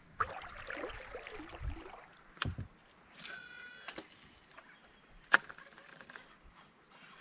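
Sharp knocks against the plastic hull of a kayak, three of them, the loudest about five seconds in. A short squeaky call about three seconds in sounds over a quiet river background.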